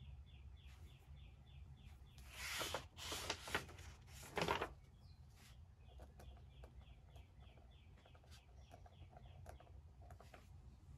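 Three short scratchy rustles, the loudest about four and a half seconds in, like paper or a notebook being handled at a desk. A bird faintly repeats a fast run of short chirps, about seven a second, in the first second and again from about six seconds in.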